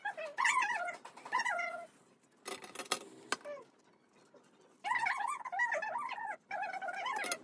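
An animal whining in a series of high, wavering calls, pausing in the middle while a short clatter of clicks is heard about two and a half to three seconds in.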